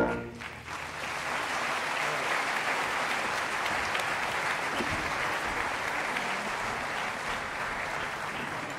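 Audience applauding steadily, starting about a second in as the concert band's final chord dies away.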